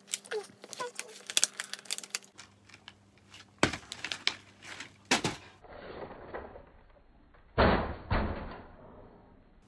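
A run of small sharp clicks, then four dull thumps, the last two the loudest and close together near the end.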